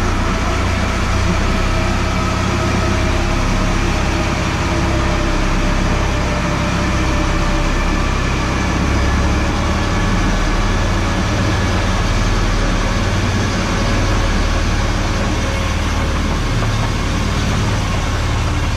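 Ride-on miniature railway locomotive running steadily along the track through a tunnel: a loud, even low rumble from the engine and wheels with faint steady whines above it.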